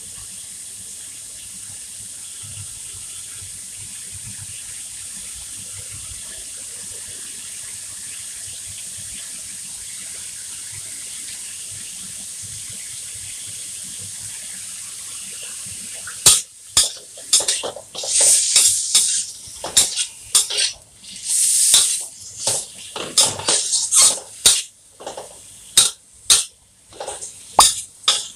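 Shrimp and garlic sizzling steadily in butter in a metal wok. About halfway through, a metal spatula starts scraping and stirring the wok in quick, irregular strokes over the sizzle.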